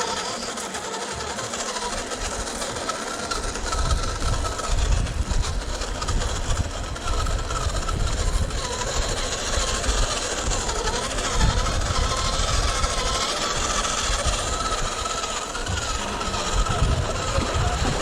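RC crawler's electric motor and geared drivetrain whining as it crawls, the pitch wavering up and down with the throttle. A heavy low rumble joins in about three seconds in.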